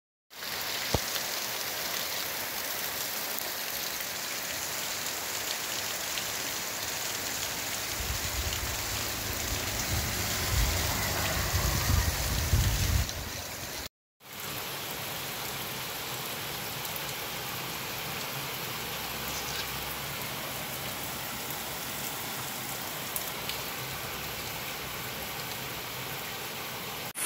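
Heavy rain pouring down on a street, a steady hiss, with a low rumble swelling up for several seconds in the middle. The sound drops out for an instant at a cut about halfway through, then the downpour carries on.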